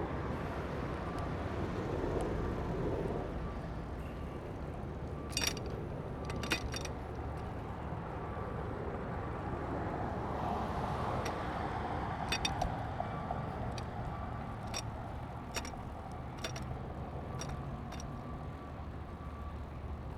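Steady rumble of road traffic, cars and trucks passing, with scattered sharp clicks and ticks over it.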